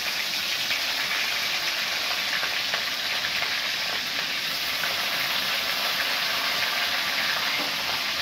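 Chopped green chillies frying in hot mustard oil in a steel kadhai, the oil sizzling steadily without a break.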